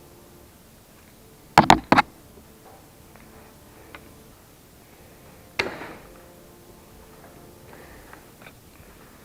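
Hard knocks and clicks of hand tools and parts being handled during a chainsaw repair: three sharp knocks in quick succession about a second and a half in, a single louder knock about five and a half seconds in, and faint clicks in between.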